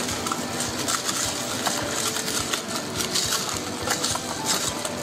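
Silicone spatula stirring and scraping around a stainless steel bowl, with rapid, irregular scrapes and light clicks. The cream-and-gelatin panna cotta base is being stirred over an ice bath so that it thickens.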